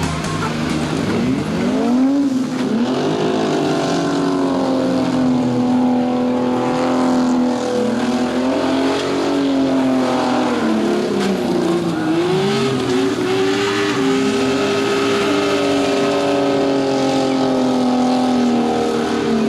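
Several demolition derby cars' engines revving hard, their pitch rising and falling over and over as the drivers accelerate and back off, with more than one engine heard at once.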